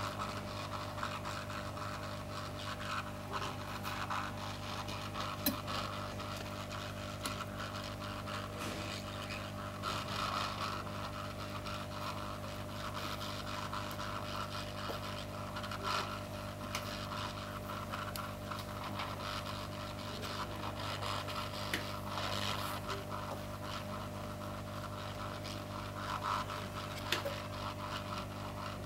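Hot-air rework station blowing steadily with a low hum as it heats a flux-coated MOSFET on a TV power board to desolder it. A few light clicks and scrapes of metal tweezers on the board.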